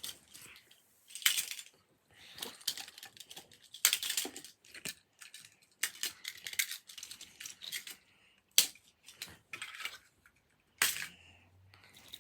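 Small plastic wind-up toys being handled and set down one after another: irregular clicks and clatter with short stretches of rustling.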